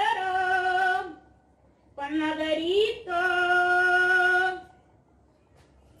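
A woman's voice holding two long sung notes. The first fades out about a second in; the second starts about two seconds in, slides upward, then holds steady for about two and a half seconds.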